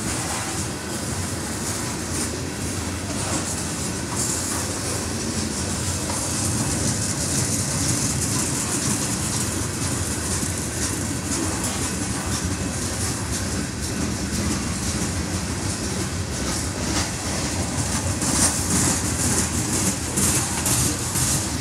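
Loaded coal cars of a long freight train rolling past: steel wheels running on the rails with a steady clickety-clack over the rail joints, a little louder near the end.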